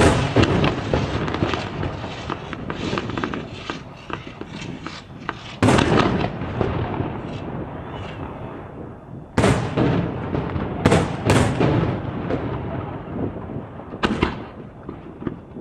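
Aerial firework shells bursting: six loud booms, one at the start, then at about six, nine and a half, eleven (two in quick succession) and fourteen seconds in, each trailing off in a long rolling echo. Dense crackling fills the gaps between them.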